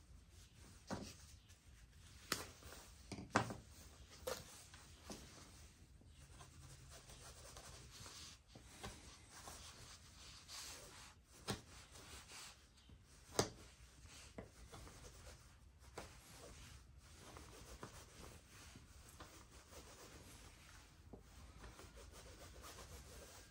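Knife blade slicing through 550 paracord: faint rubbing and scraping with scattered sharp clicks, the loudest about thirteen seconds in.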